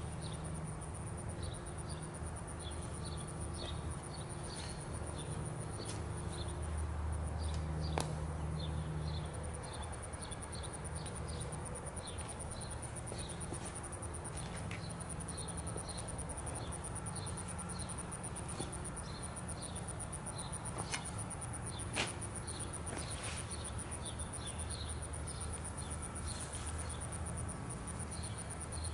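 Outdoor ambience of insects chirping, short high chirps repeating irregularly over a steady low hum. Two sharp clicks, about eight seconds in and again near twenty-two seconds.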